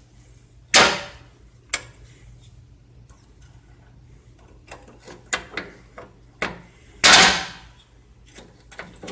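Pliers working a steel cotter pin: a few sharp metal clicks and knocks, with a louder clank about seven seconds in, as the pin's legs are bent over.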